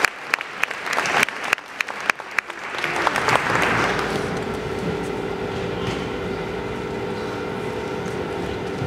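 Audience applause with individual sharp claps that dies away after about three seconds, giving way to a steady drone with a few held tones.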